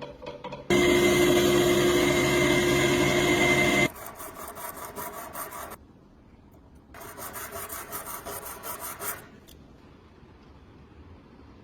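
A power tool runs steadily with a whine for about three seconds, then stops. Later come quick, even rubbing strokes, about four a second, of hand sanding or filing on a workpiece.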